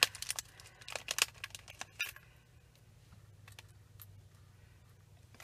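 Light plastic clicks and taps of googly eyes being handled and set down on a cutting mat, most of them in the first two seconds, over a faint steady low hum.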